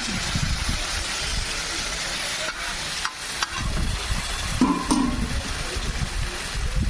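Food sizzling and being stirred on a hot street-food griddle, a steady frying hiss with a few short clicks and clatters of utensils midway.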